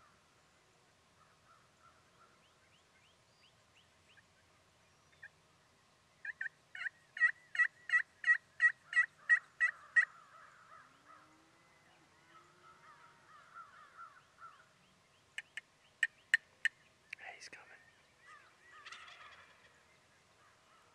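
Turkey yelping: a run of about a dozen evenly spaced yelps, about three a second, building up near the middle. A few sharp, short clucks follow later, then a rough, rattling gobble near the end.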